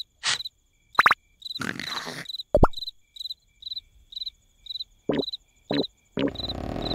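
Crickets chirping steadily, about three short high chirps a second, as a night-time background, broken by a few short cartoon sound effects: a squeak about a second in, a short falling tone with a thud, and two clicks. A steady hiss comes in near the end.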